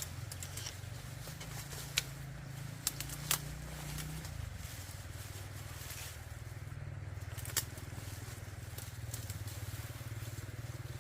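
A small engine hums steadily, its pitch shifting down slightly about four seconds in. A few sharp snaps and crackles sound over it.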